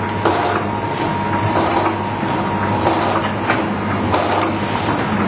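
Vertical automatic pouch packing machine running, with a steady low hum, a thin steady whine and a clack from its mechanism about every half second.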